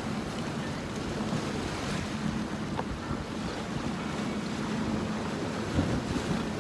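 Ocean surf washing and breaking against shoreline rocks, with wind buffeting the microphone.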